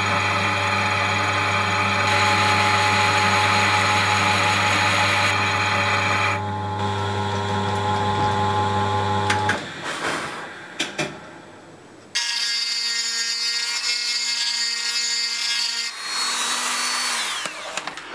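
Old Craftsman lathe running steadily while a boring bar cuts inside a cast iron backplate, the motor giving a constant hum. About halfway through it stops and a few knocks follow. Then the lathe starts again and runs steadily before winding down near the end, its pitch falling.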